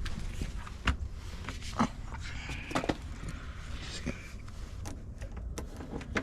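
Scattered sharp clicks and knocks, about six over several seconds, over a low steady rumble, as a locksmith works on a locked door lock.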